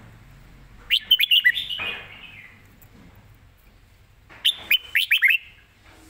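Red-whiskered bulbul singing two short phrases of quick whistled notes, one about a second in and another about four and a half seconds in.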